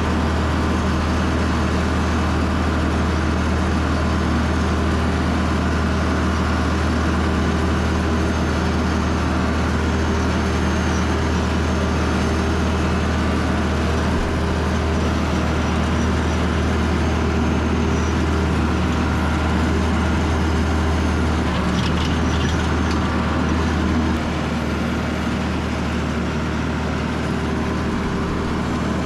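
Tractor engine running steadily under load, its deep note holding even, easing slightly and changing tone about 24 seconds in.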